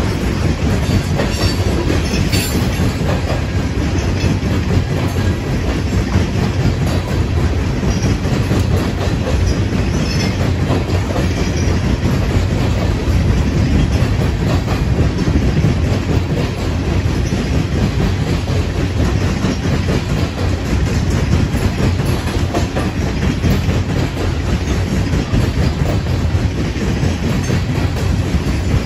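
Loaded coal cars of a freight train rolling past at close range: a steady, heavy low rumble of steel wheels on rail, with the rattle of the cars.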